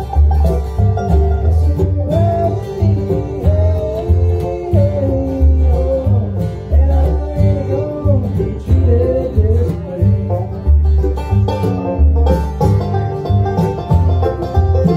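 Live acoustic bluegrass band playing: banjo, mandolin, acoustic guitar and upright bass, the mandolin carrying the melody at the microphone over a steady, pulsing bass line.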